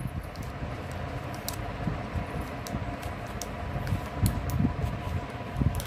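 Plastic-sleeved VCD cases being handled and shifted, with scattered faint crinkles and clicks over a steady fan-like hum.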